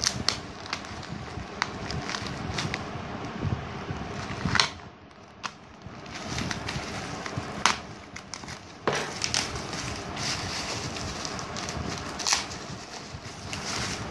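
Plastic courier bag and bubble wrap crinkling and rustling as they are handled and torn open, with many sharp crackles. The sound drops away briefly about five seconds in, then the crinkling picks up again.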